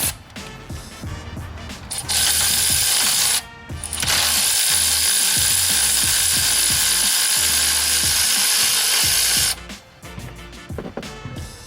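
Milwaukee M12 Fuel 3/8-inch cordless electric ratchet running in two steady bursts, a short one about two seconds in and a longer one of about five seconds, as it spins out the bolt holding the serpentine belt tensioner. Light clicks and knocks of tool handling come before and after the bursts.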